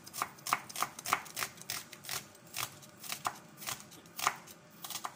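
Chef's knife chopping a red onion on a wooden cutting board: a series of sharp knocks, about three a second at first, then slower and more irregular in the second half.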